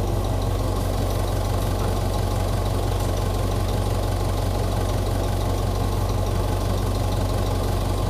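Diesel tractor engine idling steadily, a low even rumble with a light knock.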